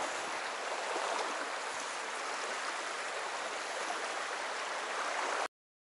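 Small creek's water running steadily over a shallow bed, then cutting off suddenly to dead silence about five and a half seconds in.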